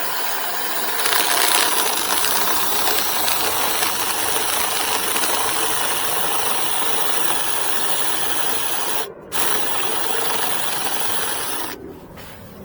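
Cordless drill driving a 32mm spade bit into a reclaimed wooden post, boring a recess for a bolt washer. It runs steadily, stops for a moment about nine seconds in, then runs again and stops near the end.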